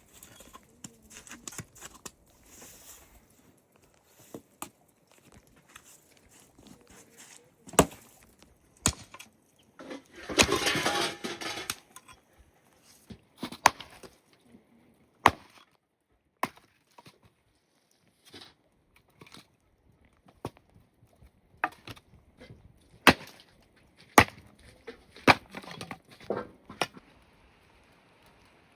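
Irregular sharp knocks and cracks of wood being broken, with a brief rustling burst about ten seconds in.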